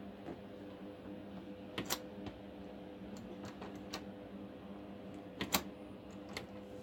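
Quiet indoor room tone: a steady low hum with a few faint, scattered clicks and taps.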